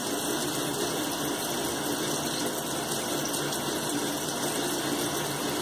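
Bathroom sink faucet running steadily, water pouring into the basin.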